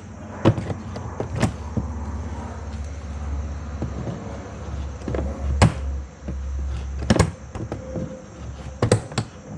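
Needle-nose pliers clicking and knocking against metal inside a car door while fishing for the door-handle cable hook. There are half a dozen sharp clicks, scattered over a low steady rumble.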